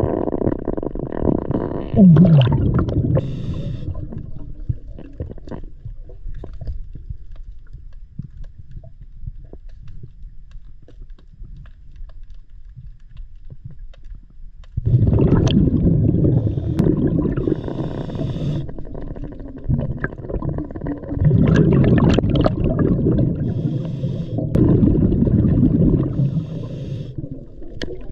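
Underwater sound of a scuba diver breathing through a regulator: long low bursts of exhaled bubbles, with a quieter lull in the middle and several bursts close together in the second half.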